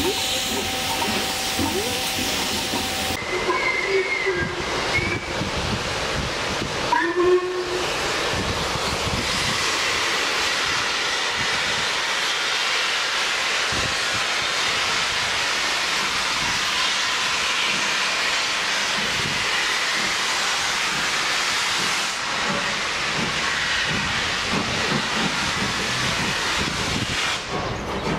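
LMS Black Five steam locomotives letting off a loud, steady rush of steam, with two short whistle calls about four and seven seconds in. Near the end the noise becomes more broken as a locomotive works up the line toward the microphone.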